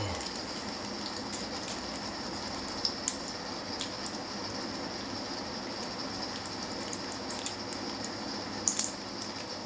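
Faint crinkles and clicks from a plastic-and-foil medicine blister pack being handled, a few scattered ticks over a steady hiss.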